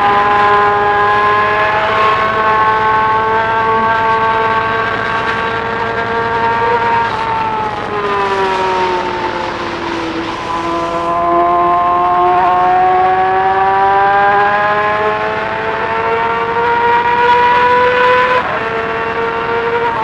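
2020 Yamaha R6's 599 cc inline-four engine running at high revs under way, with wind rush. The revs climb slowly, fall away smoothly about a third of the way in as the throttle eases, build steadily again, and break briefly near the end.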